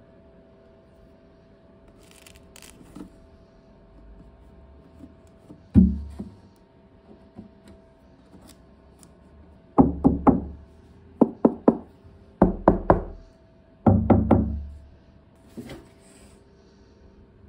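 Knuckles rapping on a hard motorcycle saddlebag shell: a single knock, then several quick groups of two or three raps. The shell is being tapped to judge how thick the aftermarket bag's material is compared with the stock one.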